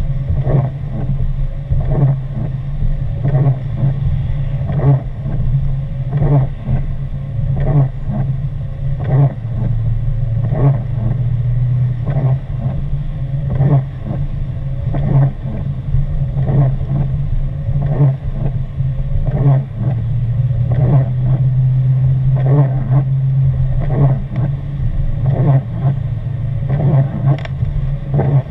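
Inside a moving car on a wet road: a steady low drone of engine and tyres, with the windshield wipers swishing across the glass about once a second.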